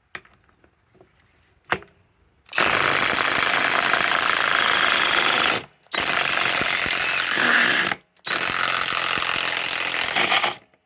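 Cordless impact wrench hammering as it drives a 10-inch lag screw into wood, in three long runs of about three, two and two and a half seconds with short pauses between, after a couple of faint clicks.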